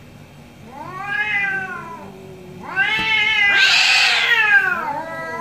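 Domestic cat yowling angrily in a face-off with another cat: a drawn-out, wavering moan about a second in, then a louder, longer yowl that turns harsh and screechy at its peak, with another starting near the end.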